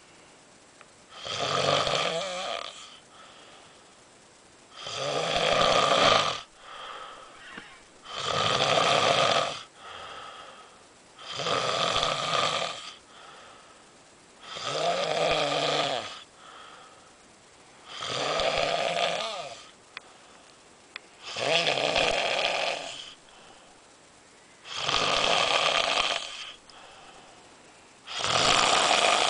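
Snoring in deep sleep: nine loud, rhythmic snores, about one every three and a half seconds, each with a softer breath between.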